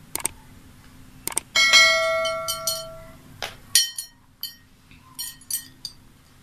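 A few sharp clicks, then a clear bell-like ring about a second and a half in that rings on for about a second and a half before fading, followed by more clicks and light taps.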